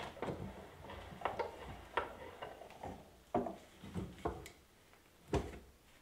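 Wooden knocks and clicks from handling a knife in a wooden bench vise: the tape-wrapped blade is set between the jaws and the vise jaw is worked by hand. The knocks come singly and irregularly, the sharpest about five and a half seconds in.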